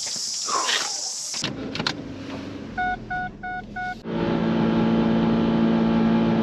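Four short electronic beeps, then the Mazda Miata's four-cylinder engine starts about four seconds in and runs steadily.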